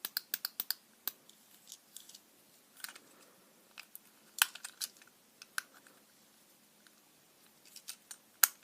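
Fidget cube being worked by hand: sharp plastic clicks of its buttons and switch, a quick run of about six in the first second, then single clicks and short clusters with a pause before a few more near the end.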